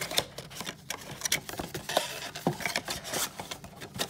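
Cardboard top flap of a Panini Contenders trading-card box being pulled open by hand: a run of small clicks, scrapes and rubbing, with two short stretches of rustling tearing, about a second in and near the end.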